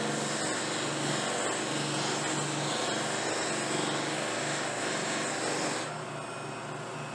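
Electric bench buffer running steadily, its spinning cloth buffing wheels hissing as a briar pipe is worked against them, over a low motor hum. The hiss drops off about six seconds in.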